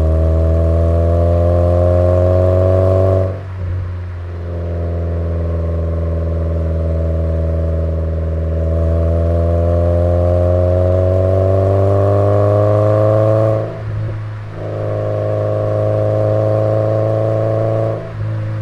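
Toyota MR2 Spyder's 1.8-litre four-cylinder exhaust note through a TTE cat-back with the pre-cat deleted, picked up right above the tailpipe: a steady drone under light throttle whose pitch climbs slowly. It dips briefly, like upshifts, about three seconds in, about fourteen seconds in and again just before the end.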